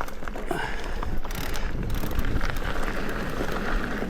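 Mountain bike running down a trail: the rear hub's ratchet clicking rapidly as it coasts, over steady rumble from the tyres and frame, with wind on the microphone.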